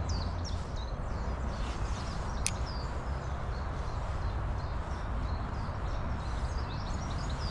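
Steady rush of river water with small birds chirping repeatedly over it, and a single sharp click about two and a half seconds in.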